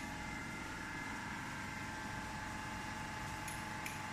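Flake ice machine running steadily under test, its Refcomp piston compressor giving a steady low hum with a high, even whine over it. A few light ticks come near the end.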